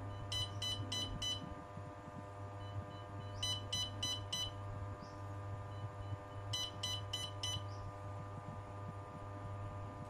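Electronic buzzer on a glove-mounted colour-sensor device beeping in three quick bursts of four short beeps, about three seconds apart, as its output signal for a detected colour. A steady low hum runs underneath.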